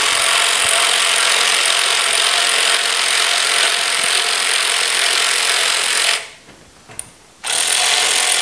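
Cordless power ratchet with a 1/4-inch hex socket running in a steady whir as it backs out the front fender bolts. It stops about six seconds in, a single click sounds in the gap, and it starts again for the last second.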